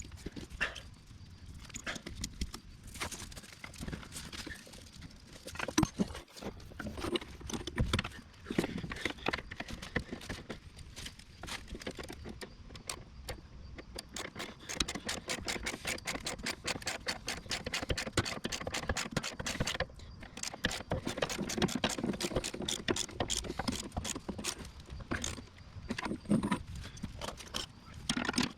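Hand socket ratchet turning skid-plate bolts, its pawl clicking in fast runs. The clicking grows denser and steadier over the second half, with a few sharp metal knocks earlier on.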